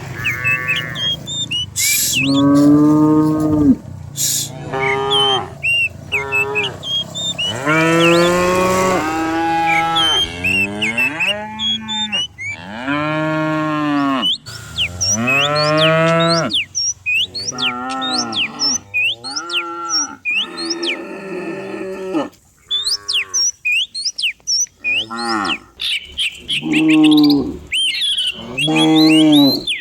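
A herd of cattle mooing, one long call after another, sometimes overlapping, with a short lull about two-thirds of the way through.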